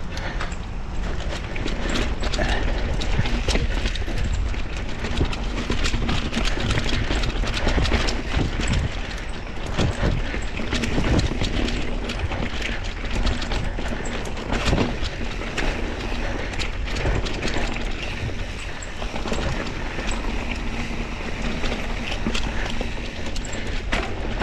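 Mountain bike being ridden along a rough dirt trail: a steady rumble of tyres on the ground with dense, irregular rattles and clicks from the bike over rocks and roots.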